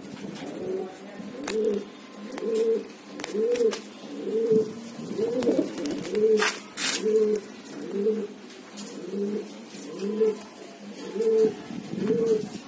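Domestic pigeons (Genda breed) cooing in a steady, regular run of low coos, about one and a half a second. A couple of sharp clicks come a little past six seconds in.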